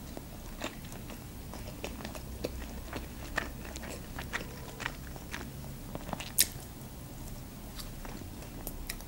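Close-up chewing of McDonald's chicken nuggets: soft, scattered crunches and wet mouth clicks, with one sharper click about six seconds in.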